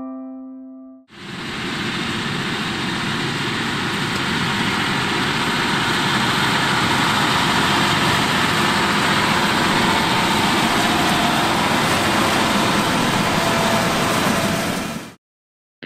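John Deere 6215R tractor running steadily under load as it pulls an Allen C-D 5000 disc seed drill through soil during sowing. The sound fades in about a second in and cuts off suddenly near the end.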